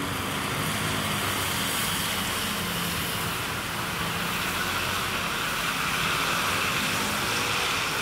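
City road traffic: a steady hiss of tyres on wet road.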